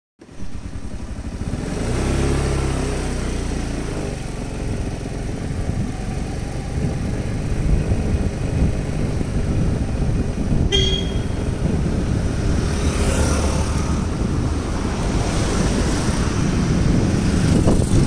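Small motorbike engine running while riding, with wind rushing over the microphone. A short horn toot sounds once, about ten and a half seconds in.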